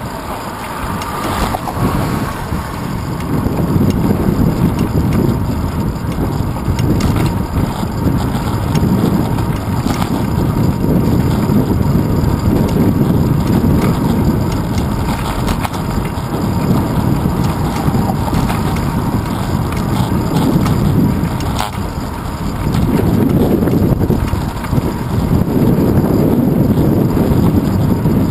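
Wind buffeting and road rumble picked up by a handlebar-mounted camera on a moving bicycle: a loud, low, rushing noise that swells and eases as the bike speeds up and slows.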